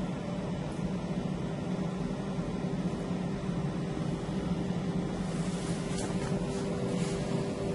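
A steady mechanical hum: a low drone with a fainter higher tone above it. Light rustling comes in about five seconds in.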